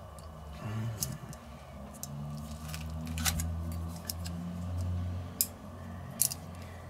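Poultry shears and metal tongs working on a roast chicken: a handful of sharp, irregular metallic clicks and snips over a low background hum.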